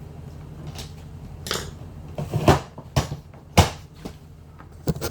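About five sharp plastic clicks and knocks from a Milwaukee Packout tool-box drawer latch being worked, the loudest about two and a half and three and a half seconds in. A small piece of plastic is being wedged under the latch tab at its hinge so that the latch springs back up.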